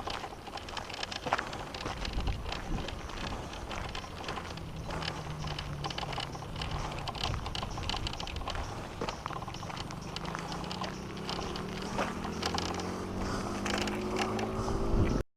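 Mountainboard's air-filled wheels rolling fast downhill on pavement: a steady rumble with many small clicks and ticks. A pitched hum rises steadily over the last few seconds, then the sound cuts off suddenly.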